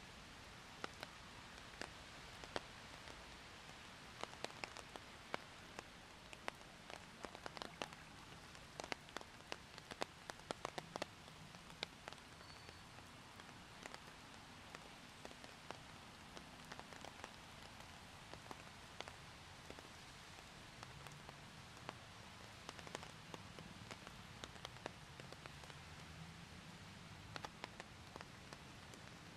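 Rain falling: a quiet, steady hiss with many sharp ticks of single drops landing close by, thickest in the first half and sparser after.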